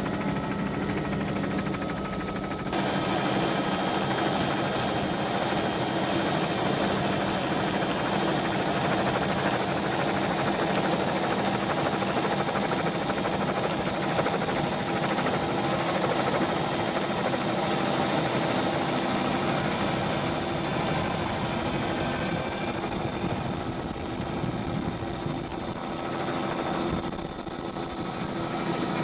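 Steady motor and rotor hum of the aircraft carrying the camera overhead, with a few steady whining tones. The sound changes at a cut about three seconds in and dips briefly near the end.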